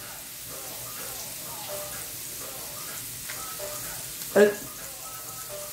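Scallops frying in a cast iron skillet, a steady sizzling hiss. A brief vocal sound cuts in about four and a half seconds in.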